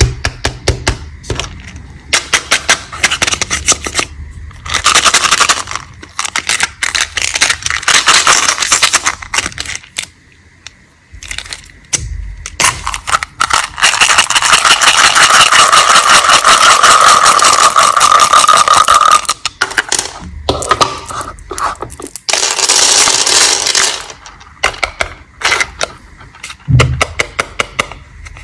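Candy ASMR handling sounds: candy packaging crackling and small hard candies clicking and clattering in quick bursts. About halfway through comes one long unbroken stretch of dense crackling.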